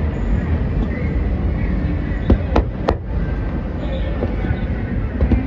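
Fireworks bursting at a distance: three sharp cracks in quick succession about halfway through, over a steady low rumble.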